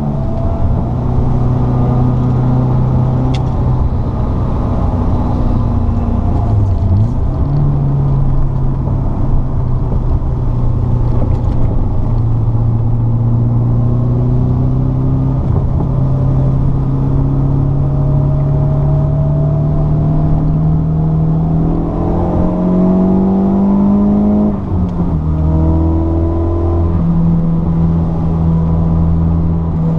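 Car engine heard from inside the cabin under hard track driving, its note climbing under acceleration and dropping at gear changes, about seven seconds in and again around twenty-five seconds, over steady road noise.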